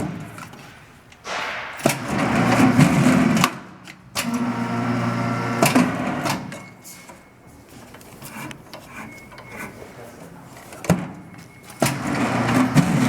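Electric guillotine paper cutter running through its cycles: the motor hums steadily in three spells of about two seconds each, with sharp clicks and knocks between them as the clamp and knife work.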